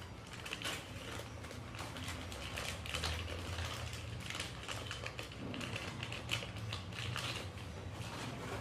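Parts and packaging of a new ceiling fan being handled during unboxing: irregular clicks, taps and rustles, over a low steady hum.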